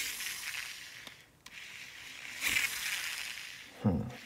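Shimano Exsence DC baitcasting reel's spool spun freely, whirring twice and winding down each time, with no DC brake whine: the DC brake sound is missing despite a new DC module. A sharp click about a second and a half in and a low knock near the end.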